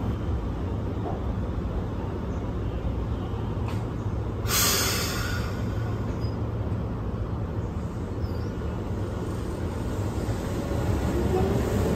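Keihan 700-series electric train standing at the platform with a steady low hum. About four and a half seconds in there is a short burst of hissing compressed air. Near the end a rising whine begins as the train starts to pull away.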